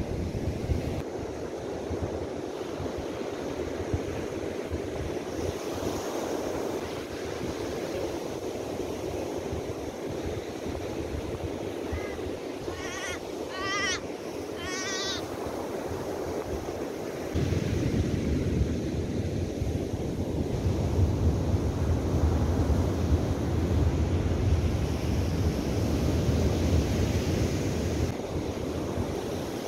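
Surf breaking steadily on an ocean beach. About halfway through a bird gives four short calls, and a little after that wind starts buffeting the microphone with a low rumble.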